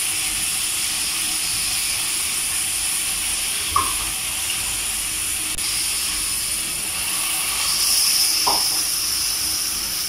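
Steady sizzling hiss of meat, onions, carrot and potato frying in a hot wok. Water is poured in from a bowl partway through, and the hiss grows louder. Two light knocks, one near the middle and one near the end.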